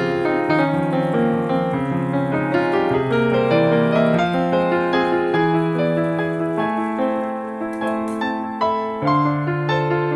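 Background piano music: a steady stream of sustained piano notes and chords.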